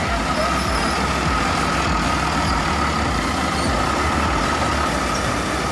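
Large intercity coach's diesel engine running low as the bus pulls slowly past close by, with a steady high whine over the rumble.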